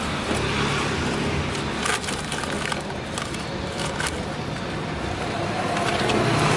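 Steady street traffic noise, with paper crinkling and sliding on a stainless steel counter as crepes are rolled in paper wrappers; a few sharp crackles about two and four seconds in.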